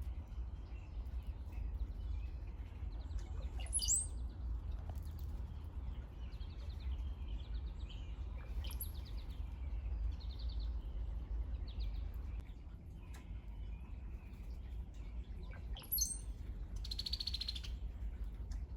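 Brown-headed cowbirds singing: liquid gurgles, like a cartoon water drop, each ending in a thin high whistle, three times about 4, 9 and 16 seconds in, with short chattering notes between. A buzzy pulsed note near the end, over a steady low rumble.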